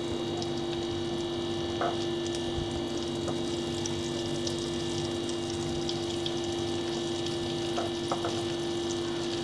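Chicken frying in hot oil in a pan, a steady sizzle under a constant low hum, with a few light clicks from hands handling chicken in flour and egg.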